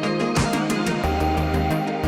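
Background music: an electronic track with a steady beat and a held bass line.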